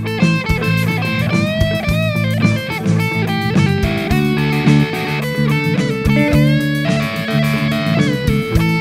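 Background music led by electric guitar, with several notes bent up and down in pitch over a steady beat.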